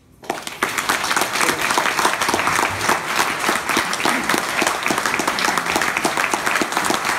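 Audience applauding: many hands clapping in a dense, steady patter that starts about a third of a second in.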